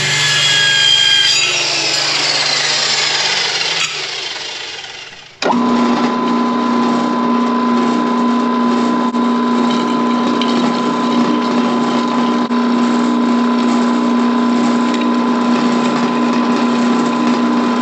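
After a falling, sweeping sound in the first few seconds, an AC TIG welding arc on aluminium starts abruptly about five and a half seconds in. It holds a steady buzz with a crackling hiss, cutting off just after the end.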